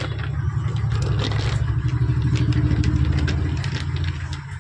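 A motor vehicle engine running, growing louder to a peak about halfway through and then easing off, with a few light clicks over it.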